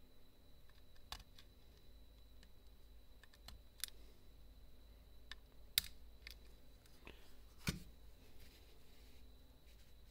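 Faint, scattered clicks and scrapes of a thin utility-knife blade prying at the small plastic housing of a computer mouse's microswitch. The sharpest ticks come about six and eight seconds in.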